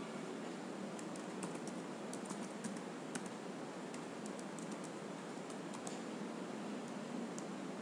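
Computer keyboard typing: irregular key clicks from about a second in until near the end, over a steady background hiss.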